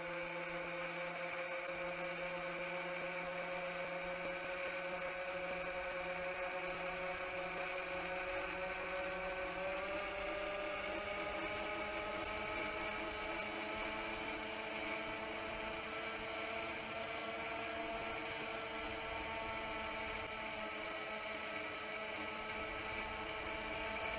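Chimera 7 long-range FPV quadcopter's motors and propellers making a steady whine as it climbs, with the pitch edging up about ten seconds in as the throttle increases.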